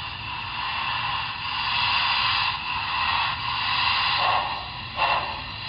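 Sound system of a Broadway Limited Imports Big Boy model locomotive playing simulated steam exhaust as the engine starts to move: slow, hissy chuffs that swell and fade about once a second.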